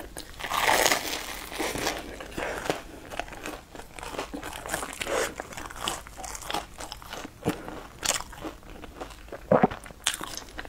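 Close-miked biting and chewing of a crusty fried food soaked in milk: a crunching bite about a second in, then a run of smaller crackles and wet chewing, with a few sharp crunches in the second half.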